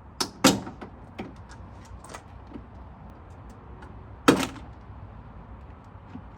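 Plastic clicks and knocks as a 2006 Mustang GT's third brake light is pulled against its retaining clips: two sharp snaps under a second in, lighter taps after them, and another loud snap about four seconds in.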